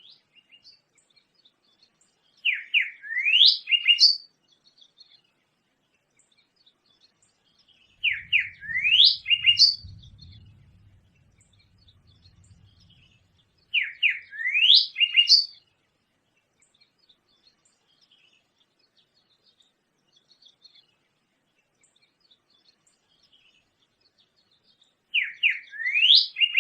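A songbird singing the same short phrase four times with long pauses between, each phrase a quick run of sweeping notes that falls and then rises in pitch. A faint low rumble sits under the second phrase.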